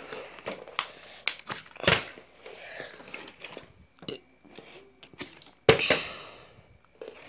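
Plastic water bottle crinkling as it is handled, with scattered taps and knocks. A sharp knock comes about two seconds in, and the loudest comes near the end as the tossed bottle hits the wooden floor and tips over on its side: a flip that fails to land upright.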